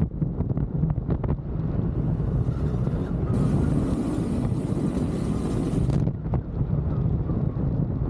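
Motorcycle running under way, its engine a steady low drone under heavy wind noise on the microphone, with a brighter rush of wind from about three to six seconds in.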